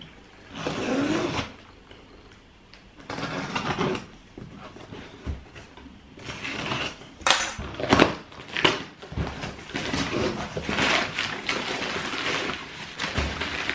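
Packaging being handled: irregular rustling and crinkling, with several sharp clicks and knocks.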